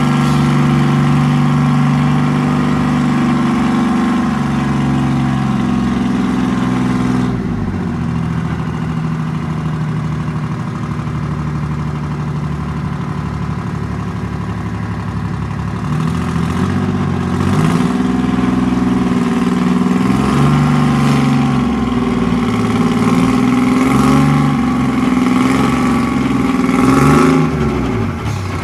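Engine of a Foremost Nodwell 240 tracked carrier running, steady at first, then dropping in pitch about seven seconds in. From about sixteen seconds on it revs up and down repeatedly as the carrier manoeuvres, with some clatter.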